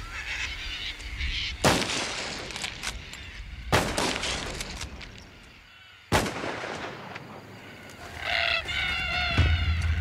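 Three high-powered rifle shots about two seconds apart, each with a short echo, fired to scare cockatoos off the crop. Near the end a flock of cockatoos screeches.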